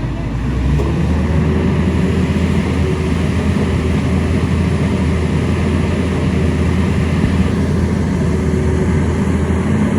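Excavator's diesel engine running steadily under load, a continuous low rumble that gets a little louder about a second in.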